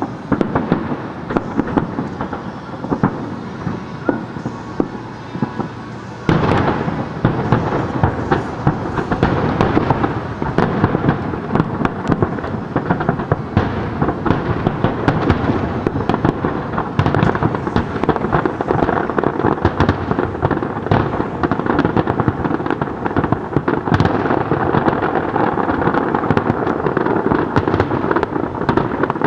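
A dense barrage of aerial firework shells bursting in rapid, overlapping bangs and crackles, stepping up louder about six seconds in.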